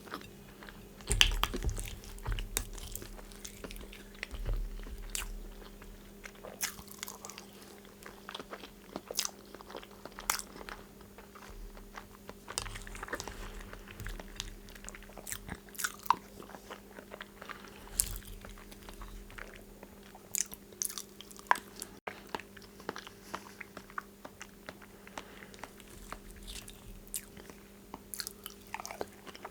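Close-miked eating: chewing and biting of food, with many sharp wet mouth clicks and occasional crunchy bites, over a faint steady low hum.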